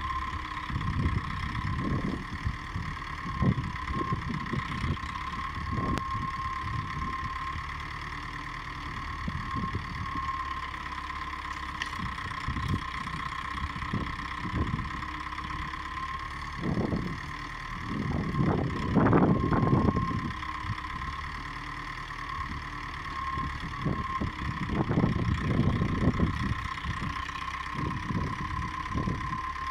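LKT-81 skidder's diesel engine running with a steady whine while its hydraulic crane swings bundles of brushwood onto the load. Irregular louder bursts come and go as branches are lifted and dropped, the loudest about two-thirds of the way through.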